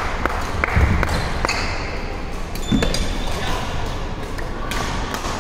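Badminton rally in a reverberant gym: sharp racket strikes on the shuttlecock several times, with short sneaker squeaks on the hardwood floor and a few low thuds of footfalls.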